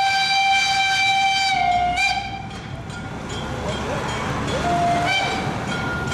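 Narrow-gauge steam locomotive's whistle blowing a long, steady blast that stops about two seconds in, then a short blast near five seconds, as the locomotive approaches at low speed with the train rumbling underneath.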